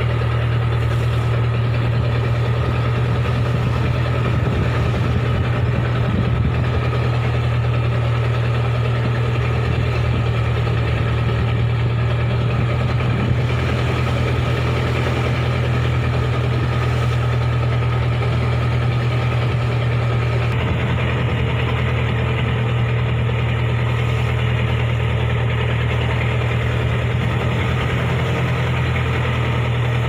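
Fishing boat's engine running steadily under way, a constant low hum that holds the same speed throughout.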